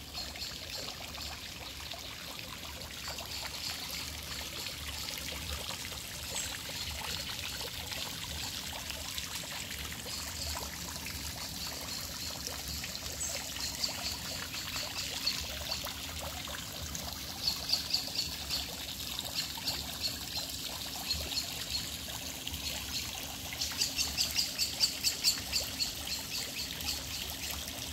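Water trickling steadily into a garden pond, with birds chirping in runs of quick high notes every few seconds, the strongest runs near the end.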